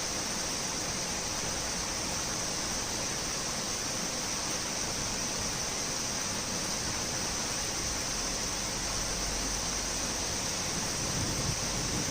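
Torrential rain falling steadily in a thunderstorm, an even hiss with no breaks. A faint low rumble creeps in over the last few seconds.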